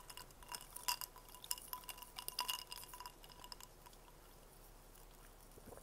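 Rapid light clinks and taps on glass, each ringing briefly, for the first three and a half seconds or so, then dying away.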